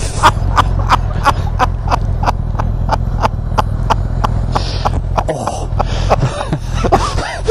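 Motorcycle engine idling with a steady low hum, with a sharp regular ticking about three times a second over it.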